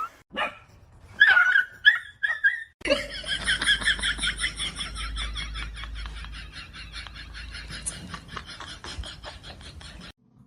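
A dog vocalising: a few short high-pitched calls, then a long run of rapid, pulsing high-pitched sounds that slowly fade and stop abruptly near the end.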